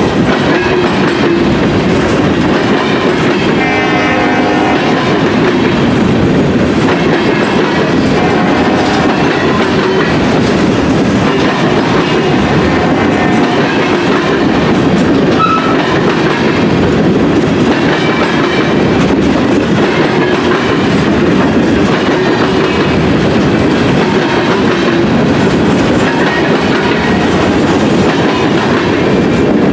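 Freight train of covered hopper cars rolling past at close range: loud, steady noise of steel wheels running on the rails, with no let-up as car after car goes by.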